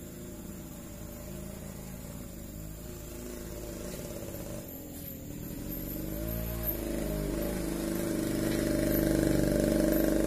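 Small motorcycle engine running steadily and growing louder, its note dipping and rising briefly about six seconds in.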